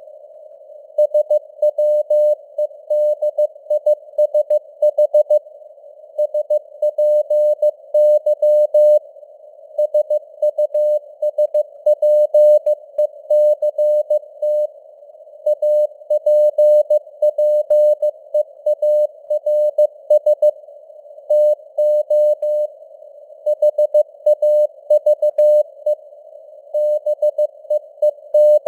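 Morse code (CW) tone, pitched about 600 Hz, keyed in dots and dashes at 15 words per minute, with short gaps between words. A faint simulated radio band hiss surrounds the tone between elements.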